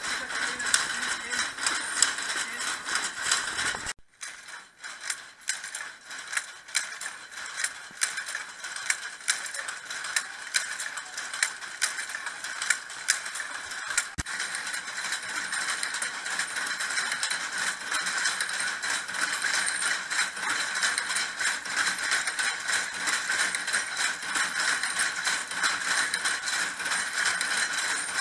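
Shuttle power looms weaving wool blankets, a dense, regular mechanical clatter of shuttles and beaters. The sound drops briefly about four seconds in, then carries on.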